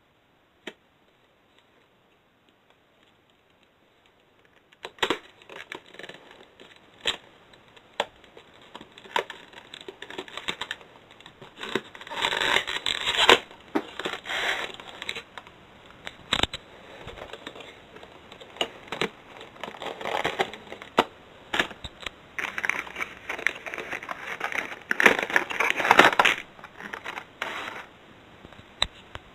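Cardboard gift box and clear plastic display tray being handled and opened, after a near-quiet start. From about five seconds in come scattered clicks and knocks, with bursts of scraping and crinkling.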